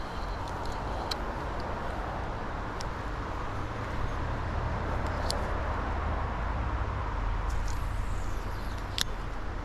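Wind buffeting the microphone: a steady rush with a low rumble, broken by a few faint sharp clicks.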